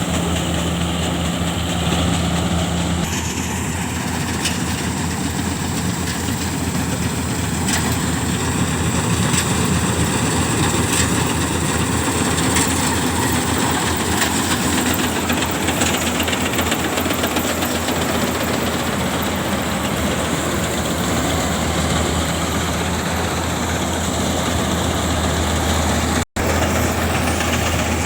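Engine of a rice harvesting machine running steadily; the sound briefly cuts out near the end.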